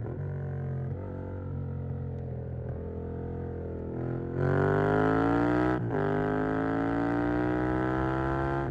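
Yamaha MT-07's parallel-twin engine through a Mivv GP Pro stainless exhaust, pulling at light throttle, then opened up hard about four seconds in. Its pitch climbs, breaks briefly for an upshift near six seconds, and climbs again, louder.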